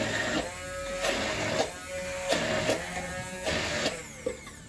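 Electric immersion blender whirring in a tall jug, switched on and off in short pulses: about four runs of half a second each with brief pauses between.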